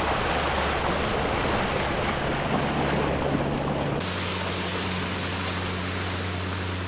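Boat engine running steadily under way, with water rushing and splashing along the hull and wind on the microphone. About four seconds in the water noise drops back, leaving mostly a steady low hum.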